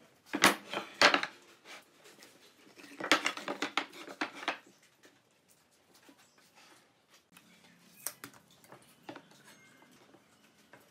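Pine boards clattering and knocking as they are set down and shuffled into place on a wooden workbench, in two bursts of sharp knocks. A few lighter knocks follow later as a metal speed square is laid on the boards.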